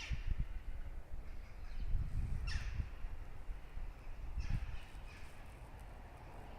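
A cat making three short chirps, each falling in pitch, over low bumps and rumble.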